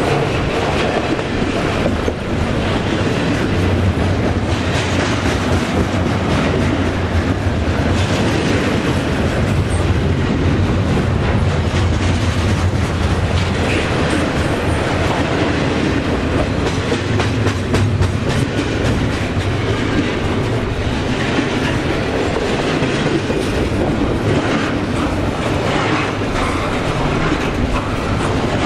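Double-stack intermodal freight train's container cars rolling past at close range: a steady loud rumble of steel wheels on rail, with a continuous run of clicks as the wheels pass over the track.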